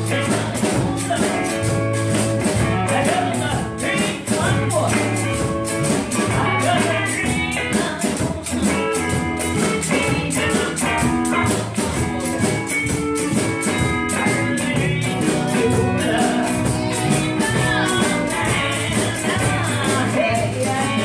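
A live blues band playing: guitars, bass and drums with a singing voice, over a steady quick high percussion beat.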